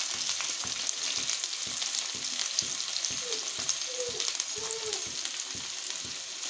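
Chopped onion, green chilli, ginger and garlic sizzling in hot oil in a wok, a steady hiss full of fine crackling pops.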